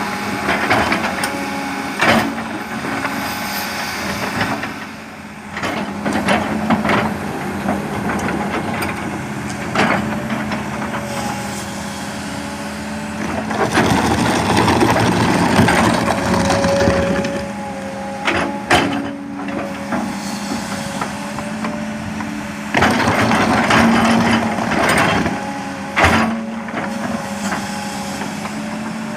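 Sumitomo S280 hydraulic excavator working, its diesel engine running with a steady tone that grows louder under load at times. Several sharp knocks stand out along the way.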